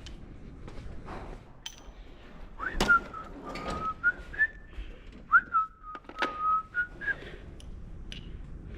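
A man whistling a short tune in two phrases, with a few sharp knocks as hand tools are handled.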